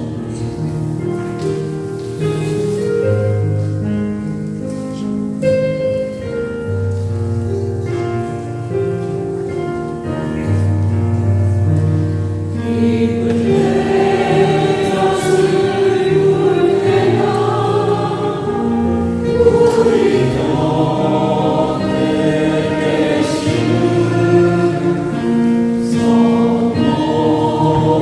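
A Catholic hymn: held accompaniment chords open it, and a choir comes in singing about halfway through.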